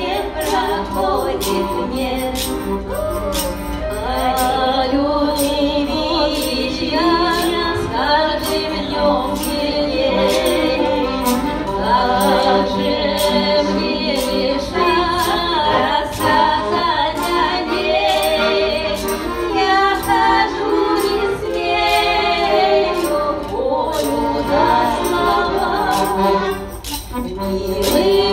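Two women singing a Russian folk song together with accordion accompaniment and a tambourine keeping a steady beat.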